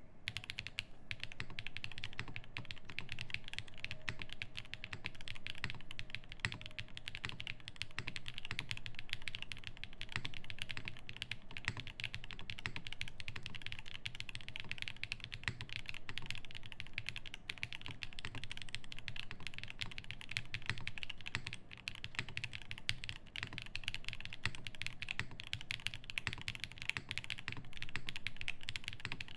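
Continuous fast typing on a Frog TKL mechanical keyboard with lubed Zaku switches, an aluminium plate, plate and case foam, and GMK doubleshot ABS keycaps: a dense run of keystroke clacks with a short pause a little after two-thirds of the way through.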